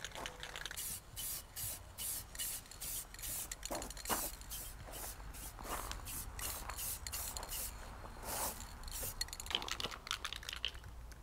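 Clear coat being applied to a freshly sanded headlight lens: short hissing strokes at about two a second, stopping near the end.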